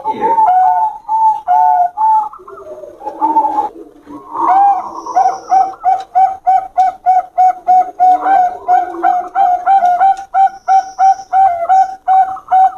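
Zebra doves (perkutut, Bangkok show line) singing: short cooing notes repeated, with a softer, lower stretch early on, then from about four seconds in a fast, even run of about three notes a second.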